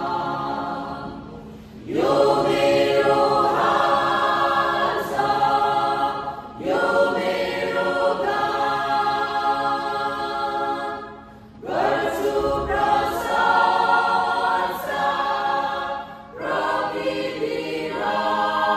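Mixed church choir of women and men singing a gospel song, phrase after phrase, with short breaks between the phrases.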